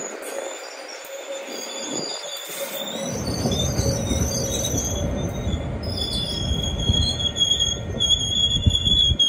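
Passenger carriages rolling slowly around a curve, the steel wheels squealing against the rail in steady high tones that grow stronger in the second half. A low rumble from the wheels comes in about three seconds in.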